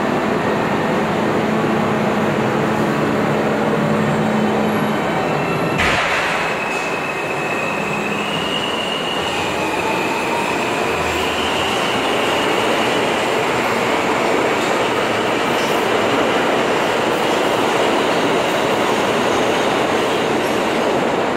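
New York subway R32 cars running past along the platform, a steady loud rumble of steel wheels on rail. About six seconds in there is a sharp clank, then a high-pitched wheel squeal that shifts up and down in pitch for several seconds.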